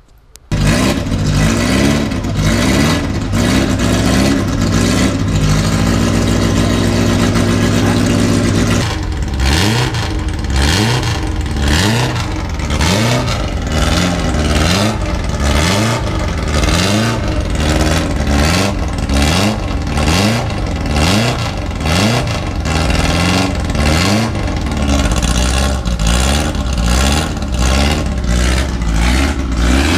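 Vintage racing sports car's engine running at a steady fast idle, then blipped repeatedly from about nine seconds in, the revs rising and falling about once a second.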